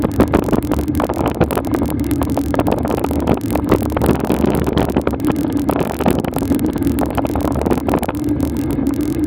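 Steady low hum from a moving vehicle, with rough buffeting from wind on the camera's microphone throughout.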